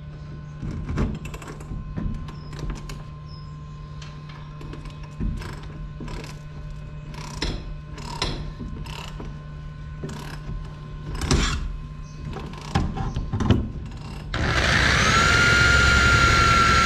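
Irregular clanks and knocks of metal tools and parts being handled, then about 14 seconds in an electric drill starts and runs steadily, its pitch sagging slightly as the bit bites into the wagon's steel floor strip and poly floor for a bolt hole.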